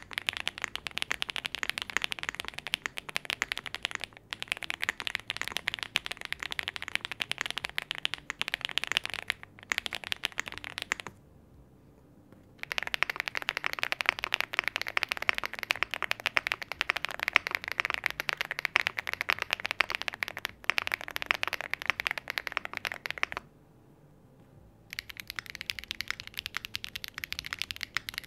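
Rapid typing on full-foam aluminium-case mechanical keyboards for a sound test: dense, fast keystrokes in three runs, broken by short pauses about 11 and 23 seconds in.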